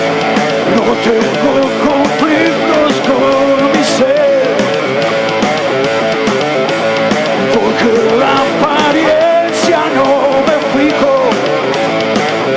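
Rock band playing live, electric guitar to the fore, in a passage without lyrics.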